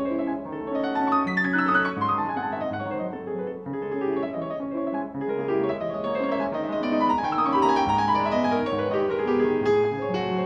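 Solo piano music: a melody over held chords, with flowing runs of notes about a second in and again past the middle.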